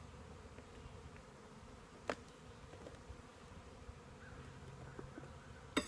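Honey bees buzzing steadily around an open nuc box and hive as its frames are handled, with two sharp knocks, about two seconds in and near the end.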